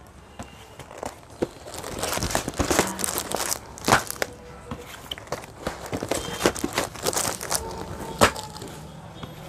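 Clear plastic saree packaging crinkling and cardboard gift boxes tapping and sliding as they are handled and set down, in irregular rustles and light knocks.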